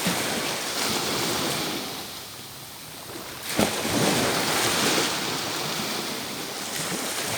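Surf washing onto a beach, with waves swelling and easing: one near the start and a louder one about three and a half seconds in.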